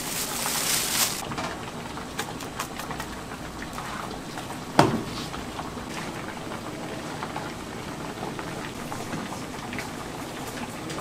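Large pot of pumpkin porridge boiling with a steady bubbling, stirred with a wooden paddle. A brighter hiss in the first second as powder is poured in, and one sharp knock about five seconds in.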